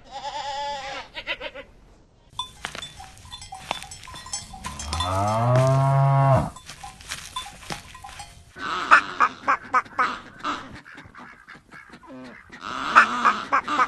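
Barnyard animal sounds: a bleat trailing off at the start, then a bell clanking and a cow giving one long low moo that rises in pitch, followed by a run of short rough noises.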